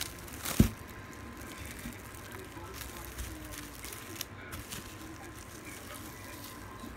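Plastic cling wrap crinkling and crackling as it is wrapped, twisted and pressed around logs of dough. A single sharp knock about half a second in is the loudest sound.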